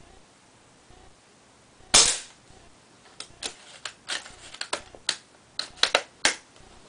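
JG BAR spring-powered bolt-action airsoft sniper rifle firing once with a sharp crack about two seconds in, followed by a quick run of metallic clicks and clacks as the bolt is worked to cock it and chamber the next BB.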